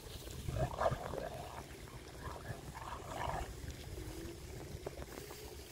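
A dog vocalizing twice, about a second in and again about three seconds in, over wind rumble on the microphone.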